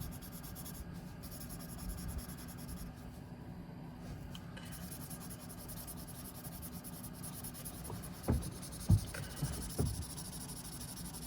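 Paper blending stump rubbing and scratching steadily across drawing paper, a grating sound likened to nails on a chalkboard, with three light taps near the end.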